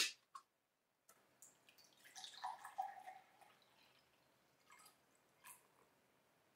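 A plastic water bottle's cap clicks open, then water pours from the bottle into a glass tumbler, strongest for a second or two in the middle. A couple of light clicks follow near the end.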